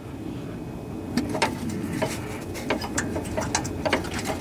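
Light clicks and taps as a hand works at a hair-pin cotter pin on a riding mower's deck mounting bracket, over a steady low rumble.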